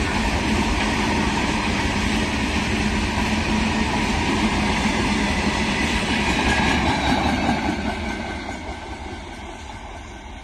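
Open box wagons of an Indian Railways freight train rolling past on the rails with a steady loud rumble and clatter. About seven seconds in, after the brake van at the tail goes by, the sound fades away as the train recedes.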